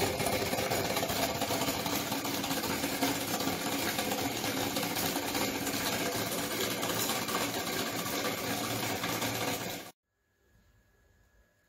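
Homemade Bedini-style pulse motor generator running while it charges a lead-acid car battery: a steady, dense, fast mechanical clatter. It cuts off abruptly near the end, leaving near silence.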